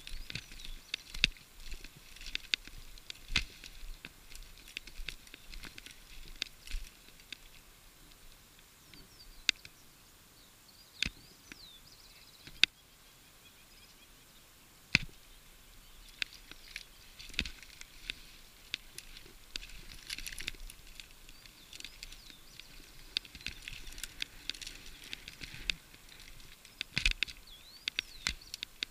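Mountain bike tyres rolling over dry reed stalks, sticks and mud, with irregular crackling, snapping clicks and knocks of the bike. The clicks thin out for several seconds in the middle.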